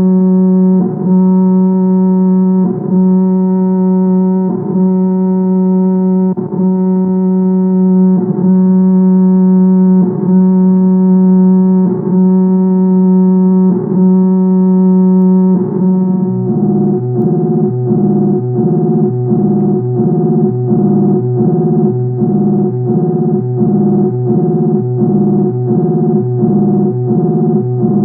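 BBC sound-effect recording of the LEO (Lyons Electronic Office) computer: a steady low electronic hum with buzzy overtones, broken by a short pulse about every two seconds. About two-thirds of the way through it changes to a faster pulsing pattern of several alternating tones.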